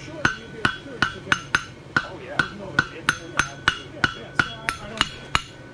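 Hand hammer striking a hot steel bar shoe on the anvil horn in a steady rhythm, about three blows a second, each blow with a short metallic ring. The farrier is blending the seams of the freshly forge-welded shoe.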